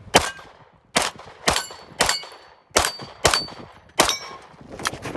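A string of about seven 9mm shots roughly half a second apart, several followed by the high ring of steel target plates being hit.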